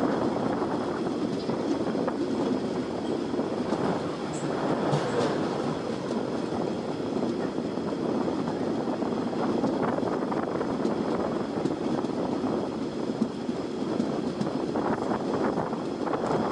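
Indian Railways passenger coach running along the track, heard from its window: a steady rumble of wheels on the rails with occasional light knocks.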